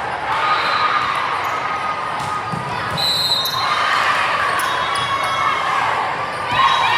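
Indoor volleyball play in a gym: ball contacts and brief squeaks of shoes on the court over steady crowd chatter, all echoing in the hall.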